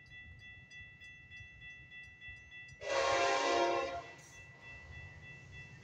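Grade-crossing warning bell ringing steadily with regular strikes. About three seconds in, the approaching Metra commuter train's locomotive horn sounds one loud blast lasting just over a second.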